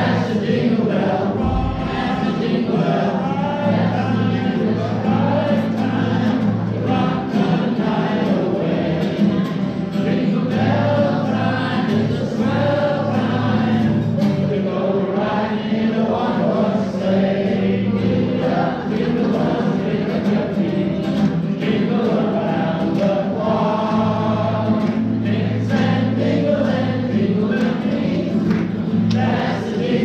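A group of voices singing a song together with instrumental accompaniment, over steady held bass notes.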